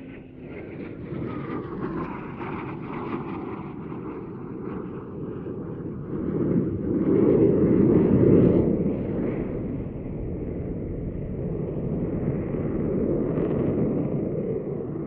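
Eurofighter Typhoon's twin Eurojet EJ200 turbofans in afterburner, a heavy crackling jet rumble from the aircraft overhead. It swells to its loudest about eight seconds in.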